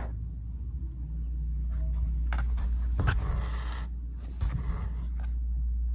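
Embroidery thread being drawn through taut fabric in several separate rasping pulls, as horizontal stitches are laid for a net base, over a steady low hum.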